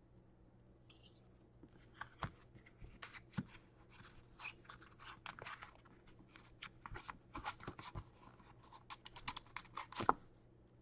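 Hands opening hockey card packaging and handling the cards: a quiet, irregular run of crinkling, tearing and small clicks, with the loudest crackle near the end.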